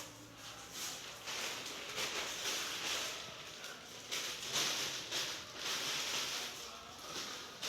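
Irregular rustling and shuffling noise that swells and fades several times.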